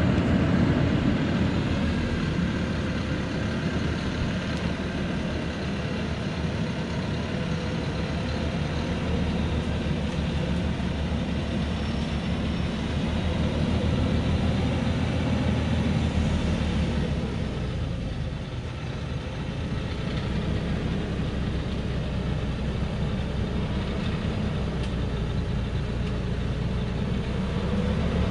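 Diesel engine of a loaded truck running steadily in a low gear as it creeps down a steep, rutted dirt slope. The engine note drops away briefly about two-thirds of the way through, then comes back up.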